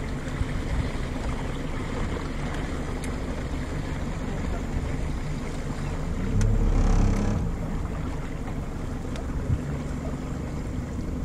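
Small river boat under way, its motor running steadily under a rush of wind on the microphone and water noise, with a brief louder gust about six seconds in.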